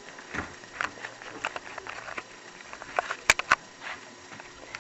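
Scattered light clicks and taps with no steady rhythm, the sharpest a crisp click a little over three seconds in.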